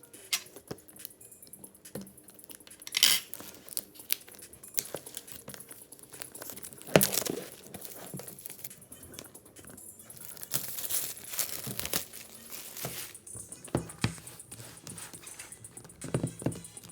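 Box packaging being handled and opened: crinkling and tearing with scattered taps and knocks, the loudest a sharp knock about seven seconds in.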